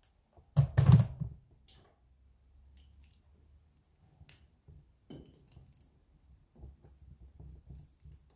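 Hand tools and metal parts clinking and clicking while a tractor engine is taken apart. There is a brief loud burst of noise about half a second in, then scattered small metallic clicks.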